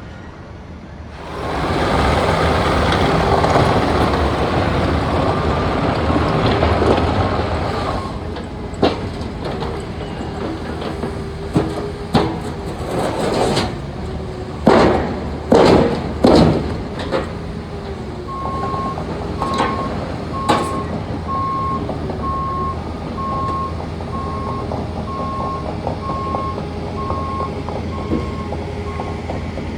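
Heavy diesel construction machinery running at a street work site, with a loud rushing noise for several seconds early on. A series of sharp metallic clanks follows, as steel road plates are handled and set down. From a little past halfway, a vehicle's backup alarm beeps steadily.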